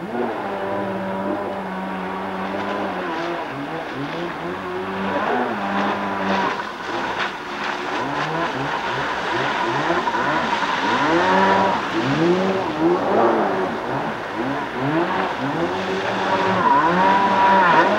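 Stand-up jet ski's two-stroke engine revving up and down over and over as it carves turns on the water, growing louder as it comes close near the end.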